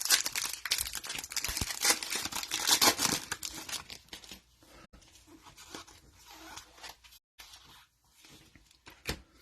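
Foil wrapper of a trading-card pack being torn open and crinkled, with dense tearing and rustling for about the first four seconds, then fainter, scattered rustles.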